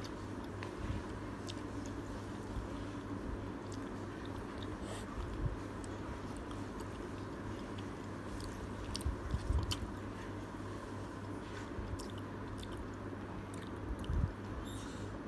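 Close-miked chewing of udon noodles and wakame seaweed, with scattered wet mouth clicks and bites over a steady low hum. Near the end, chopsticks knock against the plastic bowl.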